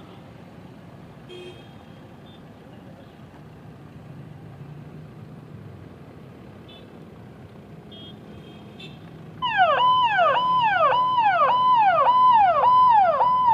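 Faint steady vehicle noise, then about two-thirds of the way in a loud electronic escort siren starts: a fast repeating yelp, each cry holding high and then dropping to about half its pitch, a little over two cries a second.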